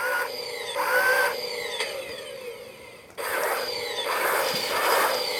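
Fisher-Price Imaginext Batbot toy robot operating: its electric motor and gears whirring, with gliding electronic tones. The whirring gets louder and denser about three seconds in.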